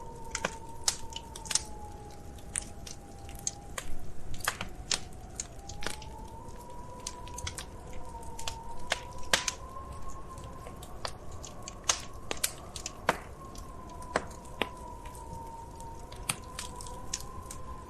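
Wood fire crackling: irregular sharp pops and snaps, several a second at times, over a low steady hiss. Underneath runs a faint held tone that slowly wavers up and down in pitch.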